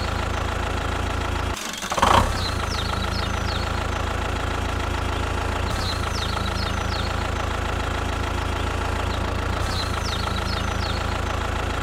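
Tractor-type engine idling steadily with a knocking beat. It dips briefly and picks up again about two seconds in. Bird chirps come over it every few seconds.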